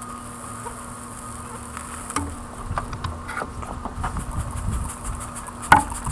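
A steady low hum with a few sharp clicks, the loudest near the end, and a low rumble in the second half.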